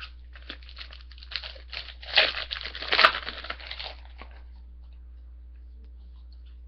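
Hockey card pack wrapper being torn open and crinkled, in irregular bursts for about four seconds, then it stops.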